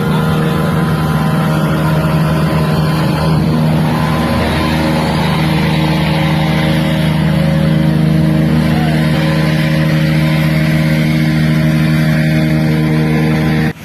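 A motor vehicle's engine running at a steady speed with a constant hum over a hiss. A second steady tone joins about four seconds in, and the sound cuts off abruptly at the end.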